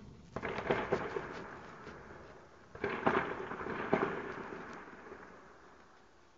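Two bursts of rapid gunfire, about half a second and three seconds in, each made of several sharp cracks followed by a long rolling echo that fades away.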